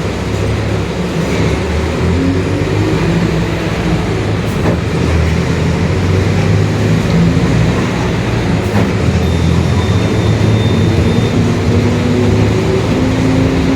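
Mercedes-Benz OF-1721 city bus under way, its diesel engine running under load with the pitch rising several times as it pulls. A growl from the differential runs underneath.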